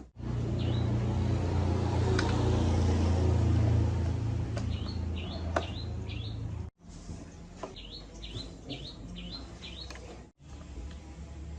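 Small birds chirping repeatedly in short calls. For the first six and a half seconds a loud, steady, low machine hum runs under them and then cuts off suddenly, leaving the chirps more in the open.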